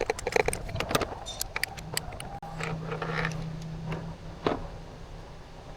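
Quick metallic clinks and rattles of tools and parts being handled during a spark plug and ignition coil swap, thickest in the first second and a half, with one more sharp click near the end. A steady low hum sets in about two seconds in.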